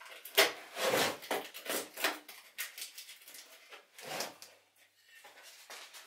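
A cardboard packaging tube being handled and slid on a workbench: a series of short scrapes, rubs and light knocks, loudest about half a second in and sparser after the middle.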